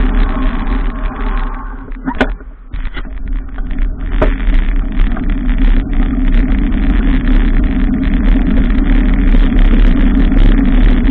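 Loud, steady rush of road and traffic noise picked up by a camera riding on a moving bicycle in city streets. It dips briefly about two seconds in, with a few sharp clicks there and again a couple of seconds later.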